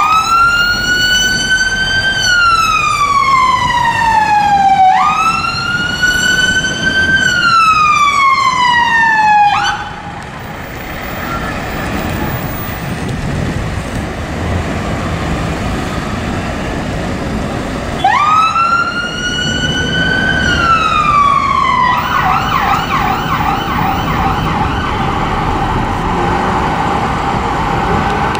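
Fire engine's siren on a slow wail: each cycle jumps up quickly, holds and then falls over about three seconds. It stops for several seconds, leaving road traffic, then gives one more wail and switches to a fast warbling yelp.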